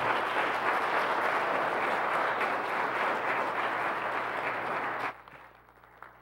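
Congregation applauding, many hands clapping steadily, stopping fairly suddenly about five seconds in.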